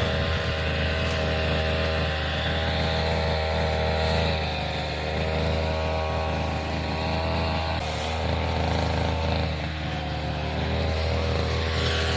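Two-stroke brush cutter with a nylon string head running at working speed while cutting grass, its engine note dipping and recovering slightly as it meets the grass.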